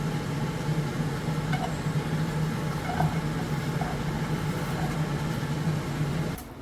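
A small electric motor running steadily with a low hum, cutting off near the end.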